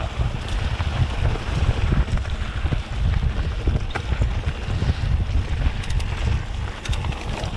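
A mountain bike being ridden along a dirt trail, with wind buffeting the camera microphone as the loudest sound, under the rolling noise of the tyres and scattered clicks and rattles from the bike.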